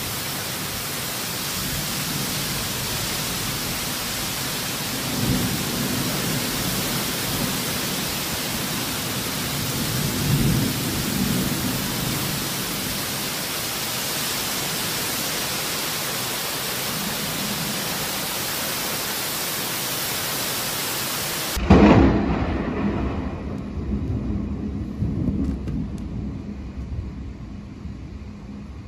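Heavy wind-driven rain of a severe thunderstorm, a steady hiss with low swells about 5 and 10 seconds in. About 22 seconds in the sound changes abruptly to a duller recording, which opens with a sudden loud low rumble that dies away unevenly over rain.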